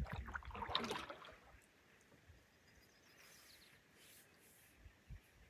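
A canoe paddle stroke: water gurgling and dripping off the blade for about the first second and a half, then quiet calm water.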